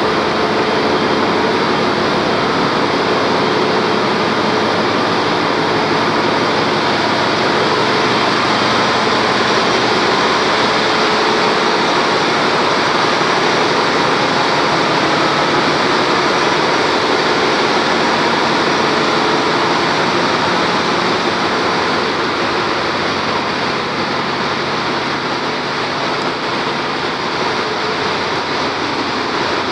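Loud, steady machinery din of a ship's engine room on a bulk carrier: a dense, unbroken wash of running machinery with no distinct beats. It eases slightly about two-thirds of the way through.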